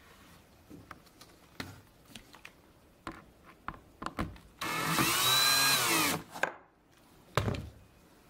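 Cordless drill-driver running for about a second and a half, its whine rising and then falling, as it drives a small wood screw part-way into the wooden stretcher bar of a canvas frame. Before it come light clicks and taps of a folding ruler being handled on the frame, and a single knock follows near the end.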